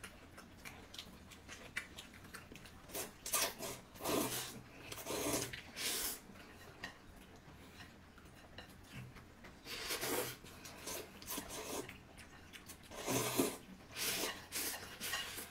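A person eating noisily, in several short bursts a few seconds apart.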